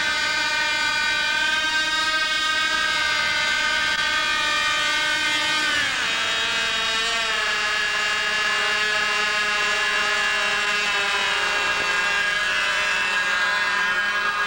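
Small engine of a home-built VTOL model aircraft running fast with a high-pitched whine. About six seconds in, its pitch drops sharply as it is throttled back, and it keeps running at a lower pitch that dips again a little later.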